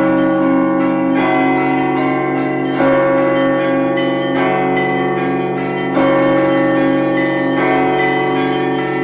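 Russian Orthodox monastery bells ringing: several bells sound together over the sustained, beating hum of a large bell. A louder stroke comes about every one and a half seconds, with lighter strokes of smaller bells in between.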